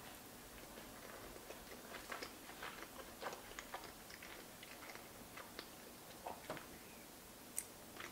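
Faint close-miked chewing of a mouthful of pasta with braised pork ragu and whipped ricotta: a scatter of soft mouth clicks, thickest from about two to four seconds in.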